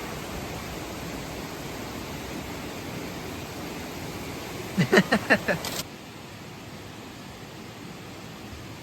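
Steady rushing noise outdoors. About five seconds in comes a quick run of about five loud, short pitched sounds, like a burst of laughter, and then the sound drops suddenly to a quieter hiss.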